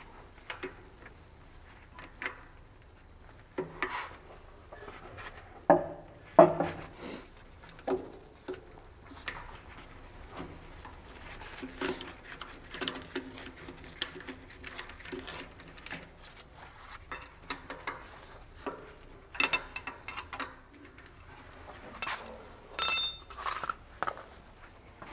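Socket wrench and extension bar working the mounting bolts of a hydraulic vibration motor on a steel roller frame: scattered metallic clicks, taps and clinks of tool on bolt and housing. Near the end comes a louder metal clank that rings briefly.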